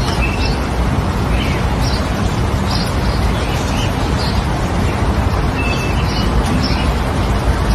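A loud, steady rushing noise with short bird chirps scattered through it, about a dozen.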